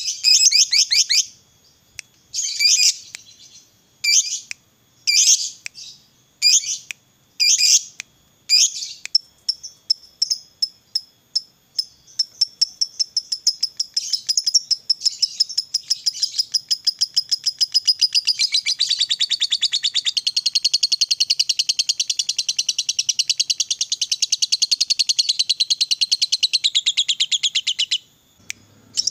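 Lovebird song: short high chirping bursts about once a second, then a rapid ticking chatter that builds about halfway through into a long, unbroken fast trill lasting some ten seconds and stopping near the end. This is the long 'ngekek' trill that hobbyists prize in a fighter lovebird.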